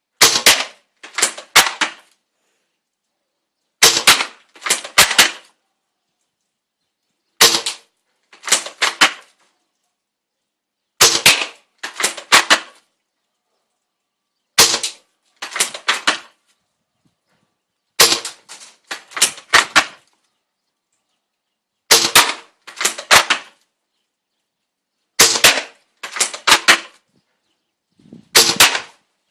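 Bolt-action airsoft Mauser sniper rifle being fired over and over, about nine times, roughly every three and a half seconds. Each sharp shot goes with a quick run of metallic clacks from the bolt being worked.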